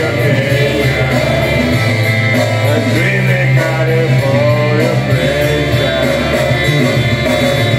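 Karaoke singing: a man's voice through a microphone over loud, steady backing music.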